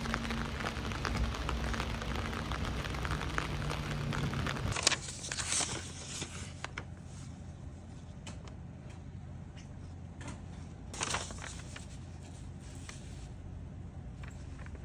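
Rain pattering on an umbrella overhead, a steady dense crackle that cuts off about five seconds in. Then a quieter room where sheets of paper are handled and rustle a few times, the loudest rustle a little past two-thirds through.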